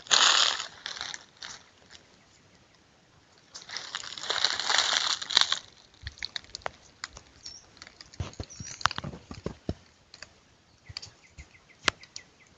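Dry leaves and stiff pineapple-plant leaves rustling and crackling as they are pushed through. There are two longer rustles, right at the start and again a few seconds in, then a run of scattered sharp crackles and snaps.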